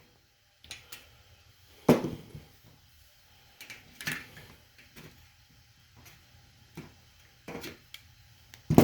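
Scattered clicks and knocks of hand work on a metal power strip, as a plug is worked loose from its housing; the strongest knock comes about two seconds in.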